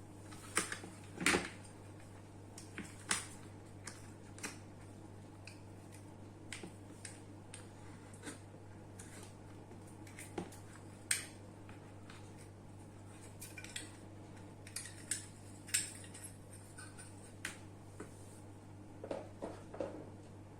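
Irregular light clicks and taps of small metal and plastic fan parts and tools being handled, over a steady low hum.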